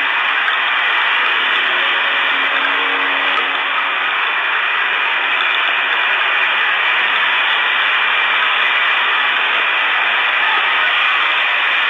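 A steady, loud hiss like radio static, unchanging throughout, with no distinct events.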